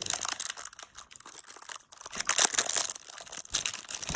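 Plastic packaging being crinkled and torn open by hand to get a spinning-top toy out, a dense run of irregular crackles and rustles that gets louder in the second half.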